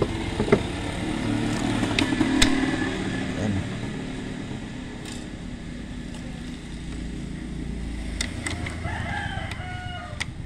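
A rooster crowing in the background near the end, over a low steady hum. A couple of sharp clicks in the first few seconds come from metal parts of a printer mechanism being worked by hand.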